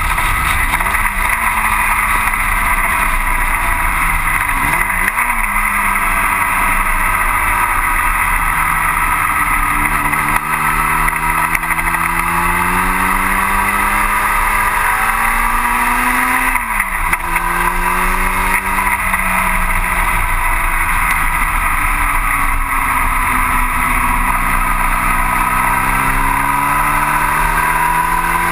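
1960 Cooper T-52 Formula Junior engine at racing speed, heard from the cockpit. The engine note climbs and falls as the car accelerates and lifts through the corners, with sharp breaks at gear changes about five seconds in and just past the middle. A steady rush of wind noise runs underneath.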